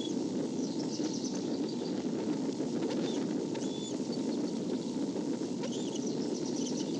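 Steady rushing background noise from an outdoor nest-cam microphone, with short, high-pitched bird chirps and brief thin whistles scattered through it in small clusters.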